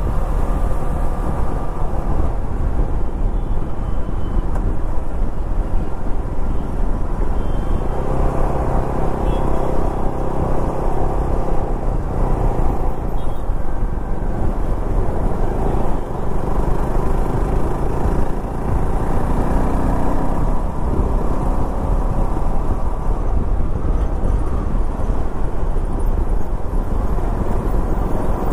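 Wind buffeting the microphone over the running single-cylinder engine of a Benelli TRK 251 motorcycle as it rides along a highway and slows down.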